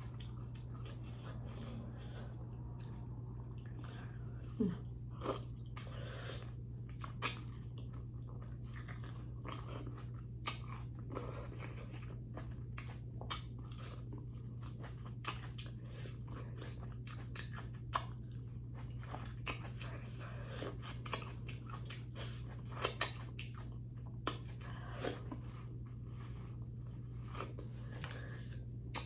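Close-miked eating of corn on the cob from a seafood boil: biting into the kernels and chewing, heard as many short, irregular wet clicks and smacks. A steady low hum runs under it.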